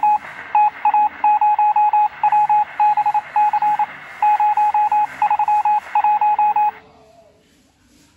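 Electronic beeping at one steady pitch, in quick runs of short beeps separated by brief gaps, cutting off suddenly about seven seconds in.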